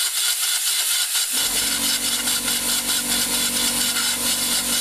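Quick, even scraping and rubbing strokes of a thin hand tool worked inside the engine block's dipstick tube bore, clearing out debris left from driving the tube in. A low steady hum comes in about a second and a half in.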